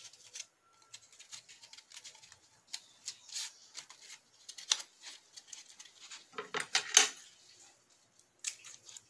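Soft rustling and small clicks of hands handling and shaping an EVA-foam flower. Near the end comes a short cluster of sharper clacks and snips from steel scissors trimming the foam.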